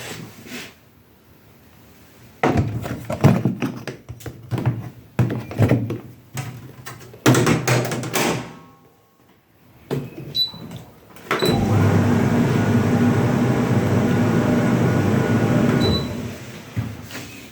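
Tumble dryer being handled: irregular knocks and clunks of its door and panels, a few short high beeps, then a steady motor hum for about four and a half seconds that cuts off.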